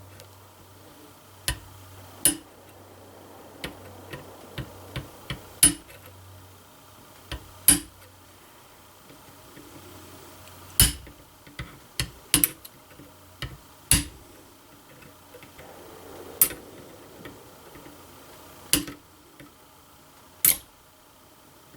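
Flint being knapped to resharpen its edge: a series of sharp, irregular taps and clicks, some in quick clusters, as the worn striking edge is chipped fresh after a lot of shooting.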